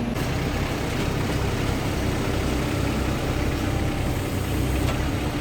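Heavy-equipment diesel engine, such as an excavator's, running steadily at a low idle-like hum.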